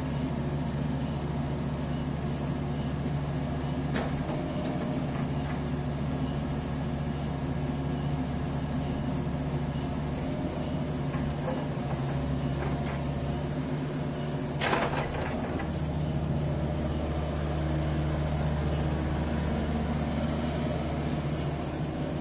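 Kubota 163-5 mini excavator's diesel engine running steadily during a trial operation of its boom and arm, with a short sharp knock about four seconds in and a louder clank near fifteen seconds in.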